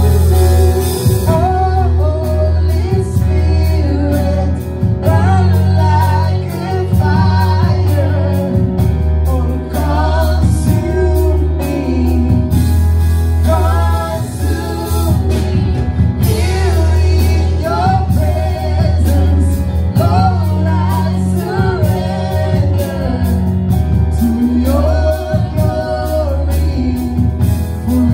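Gospel-style worship song: singers with a keyboard and bass accompaniment, the bass holding long low notes.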